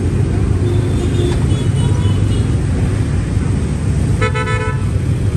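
Steady rumble of street traffic, with a single short vehicle-horn toot about four seconds in.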